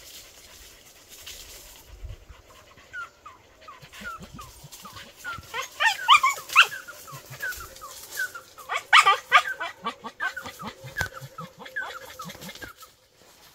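Hunting dogs barking and yelping at quarry up a tree, a quick run of short yips with louder clusters of barks about six and nine seconds in.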